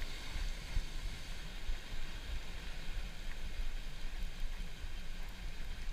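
Steady wind rumble on the microphone over the wash of breaking surf.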